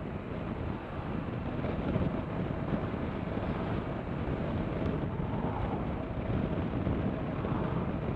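A 2017 BMW R1200RT motorcycle under way at a steady speed, heard as an even rush of wind on the microphone with the bike's running noise beneath it.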